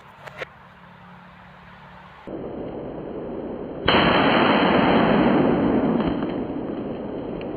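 A ball firecracker going off: a steady hiss from about two seconds in, then a sudden loud blast about four seconds in with a long noisy tail that slowly fades.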